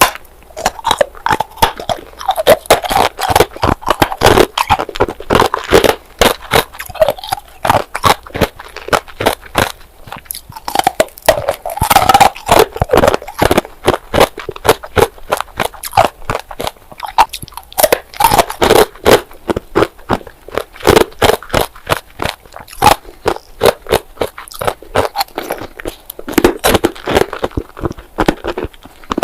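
Bars of ice being bitten and chewed close to the microphone: dense, rapid crunching and cracking, with many sharp cracks a second.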